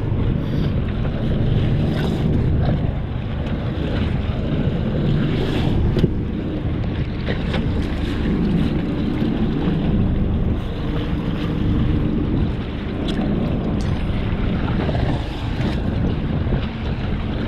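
Small fishing boat at sea with its engine running steadily, wind buffeting the microphone and water washing against the hull.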